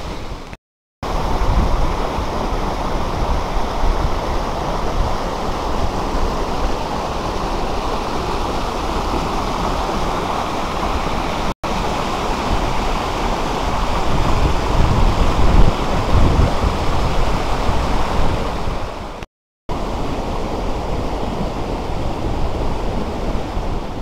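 Steady rush of a tall waterfall and the fast stream tumbling over the rocks below it. The sound drops out briefly three times, about a second in, near the middle and near the end.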